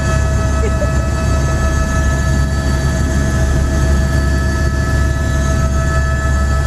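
Helicopter running: a loud, steady low rotor drone with several steady high whining tones from the turbine.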